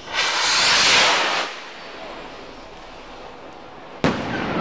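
Menshun Stinger Missile firework rocket: a loud rushing hiss of about a second and a half as it climbs, then its burst goes off with a sharp bang about four seconds in, followed by a rumbling echo.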